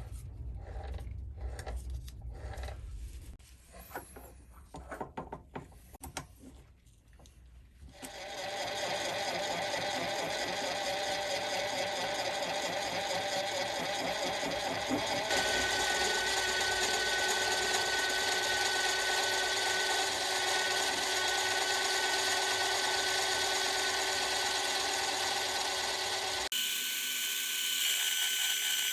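A mini metal lathe starting up and running steadily after several seconds of clicks and knocks from handling tools and stock. A higher tone joins about halfway, and the sound changes abruptly near the end.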